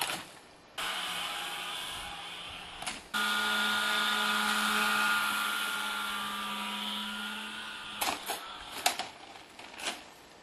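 A small motor whining steadily, with hiss, that fades slowly after several abrupt cuts; a few sharp knocks follow near the end.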